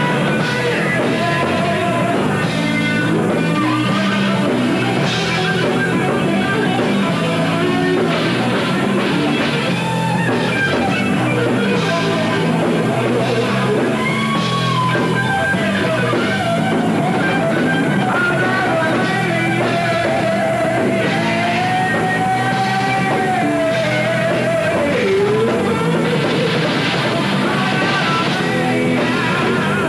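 Live heavy metal band playing: distorted electric guitar over drum kit, with sung vocals at first and then a lead guitar solo of long held notes bent up and down in the second half.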